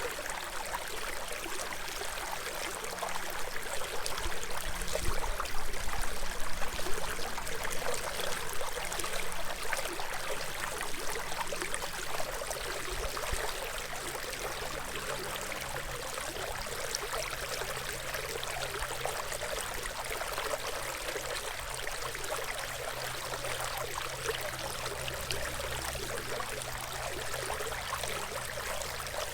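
Hill Country stream running, a steady rush of flowing water that swells louder for a few seconds a little way in.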